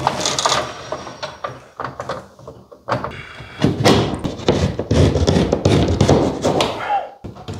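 Plasterboard knocking and scraping against the edges of a ceiling cut-out as a patch sheet is pushed up into it: sharp knocks at first, then a few seconds of dense rubbing and bumping from about three seconds in.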